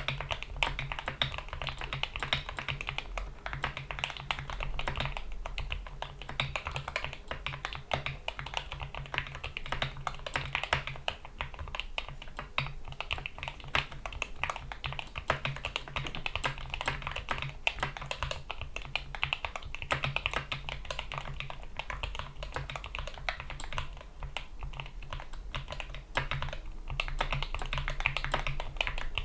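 Continuous fast typing on a GK61 mechanical keyboard with lubed Gateron Yellow optical switches, PBT keycaps and rubber O-rings damping the keystrokes: a dense, irregular run of clicks.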